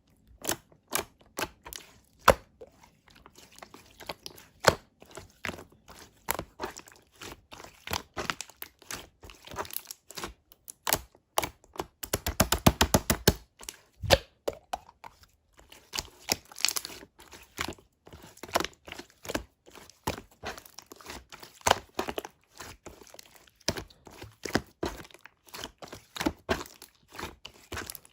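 Slime being pressed, folded and squeezed by hand, giving a run of irregular clicks and pops from trapped air. About twelve seconds in there is a quick flurry of rapid clicks lasting about a second and a half.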